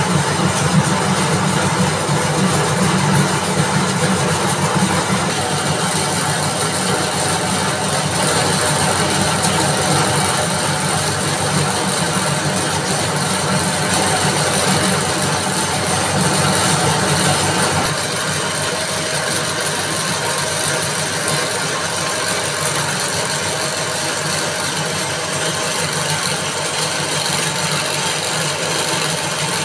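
Coconut-fibre (coir) spinning machine running: a steady, loud mechanical drone from its drive, belts and spinning spindles. Its deepest hum thins out about eighteen seconds in.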